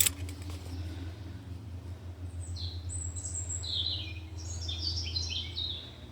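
A songbird singing one short phrase of quick high notes that step downward, starting a couple of seconds in and lasting about three seconds. A sharp knock right at the start is the loudest sound, with a low steady rumble underneath.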